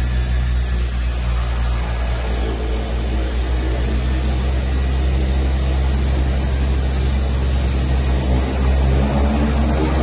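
The two Pratt & Whitney PT6A-27 turboprop engines of a DHC-6-300 Twin Otter running steadily, heard inside the cockpit: a deep propeller drone with a steady high turbine whine above it.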